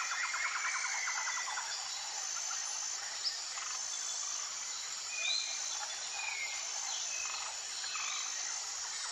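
Outdoor ambience of insects chirping in a fast pulsing trill, with a few short bird-like chirps and a single faint click about three seconds in.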